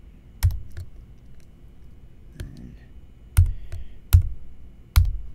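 Separate keystrokes on a computer keyboard: about six clacks, spaced irregularly with pauses of up to two seconds between them.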